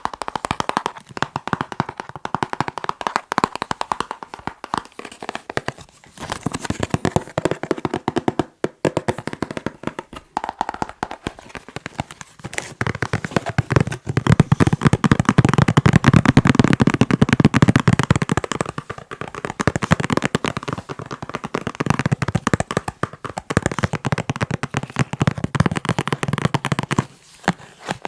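Rapid, continuous fingertip tapping on a box, many taps a second. In the middle it turns louder and deeper for a few seconds.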